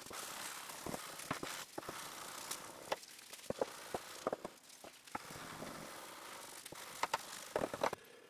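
Hand sanding a damascus steel knife blade with sandpaper: irregular scratchy strokes with scattered light clicks and taps.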